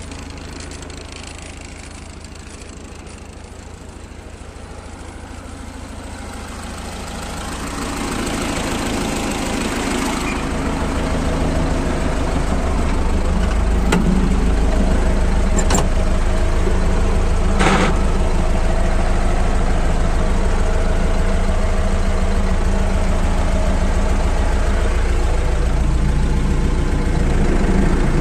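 T-40 tractor's diesel engine running steadily while the tractor pulls a hitch of harrows, quieter at first and growing louder from about a quarter of the way in, then steady and loud from inside the cab. Two sharp rattles stand out near the middle.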